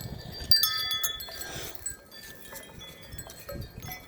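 Wind chime tubes clinking and ringing as the tangled chime is handled, with the loudest cluster of strikes about half a second in, fading after. Wind rumbles on the microphone underneath.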